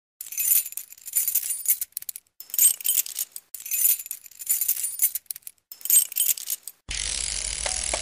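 Title-sequence sound effect of high, bright jingling and clinking in about four bursts. About seven seconds in, music starts abruptly.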